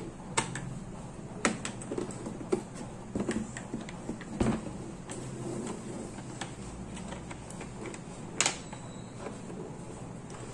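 Hard plastic drill carry case being handled and opened: its latches unclipped and the lid lifted, a series of scattered clicks and knocks.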